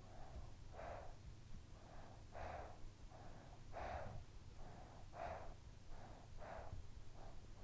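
A sleeping child breathing softly and regularly close to the recorder, about five breaths, each in two parts with the second louder. A faint steady low rumble runs underneath.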